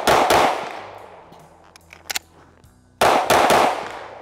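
Springfield Armory Echelon 9mm pistol fired in quick strings: two shots at the very start, a short double click about two seconds in as the magazine is changed, then three fast shots about three seconds in, each string trailing off over about a second.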